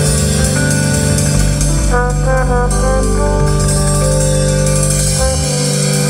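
Jazz with brass instruments playing loudly through a truck's aftermarket stereo, with a Kicker Hideaway HS10 10-inch subwoofer and a JL Audio RD400/4 amplifier, heard from inside the cab. Deep held bass notes fill the low end and drop out briefly near the end.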